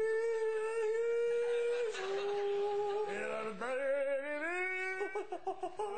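A single voice singing wordless, mock-operatic long notes. It holds a high note for about two seconds, drops to a slightly lower one, then swoops upward about four seconds in before breaking off near the end.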